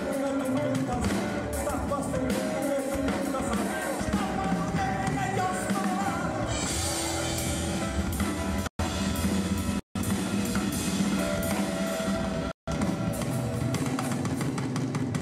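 A rock band playing a song: drum kit, bass and electric guitar under a man's sung vocal. The music drops out abruptly for an instant three times in the middle.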